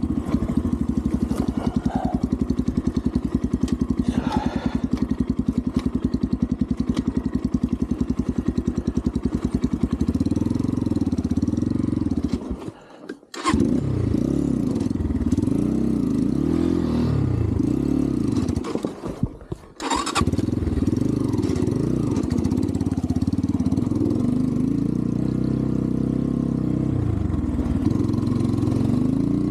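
Xpro Templar X 250cc single-cylinder dirt bike engine running. It first chugs at a steady low speed, then revs rise and fall over and over as it is ridden. Twice the engine sound drops away almost completely for about a second, then comes back.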